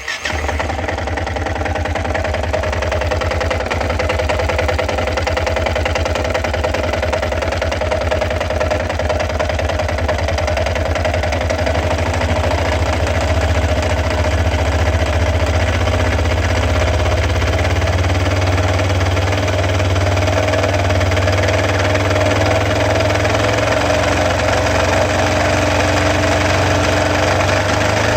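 Yamaha XT 660's single-cylinder four-stroke engine running steadily at idle with a strange noise; the owner says it seems to be misfiring and suspects worn crankshaft bearings or the clutch bearings.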